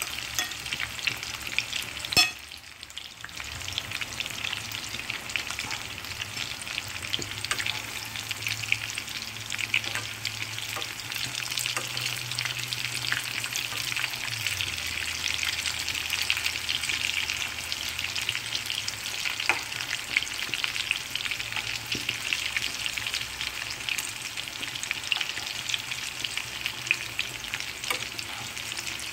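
Eggplant and egg frying in oil in a pan: a steady sizzle with fine crackles. A single sharp click comes about two seconds in.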